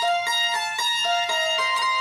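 Background music: an instrumental melody of short, evenly spaced plucked-string-like notes, about four a second.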